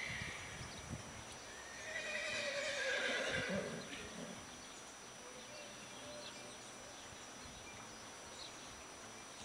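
A horse whinnying once, about two seconds in, for a little under two seconds, its pitch falling.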